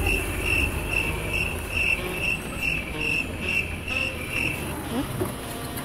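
A high, insect-like chirp repeating evenly about two and a half times a second, about eleven chirps, stopping abruptly about a second before the end, over a low steady rumble.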